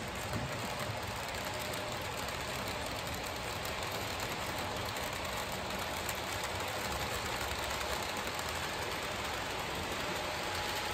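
Model trains running on a model railway layout: a steady rolling clatter and hiss of small wheels on the track.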